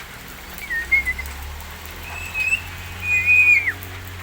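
Javan myna (jalak kebo) whistling: a short wavering whistle about half a second in, then two longer held whistles, the last one ending in a falling slide.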